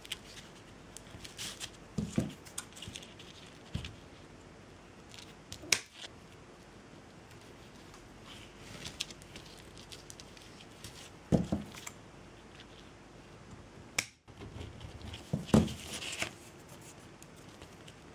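Scissors snipping jute cord in short, scattered cuts, with a few soft knocks of handling on the work surface.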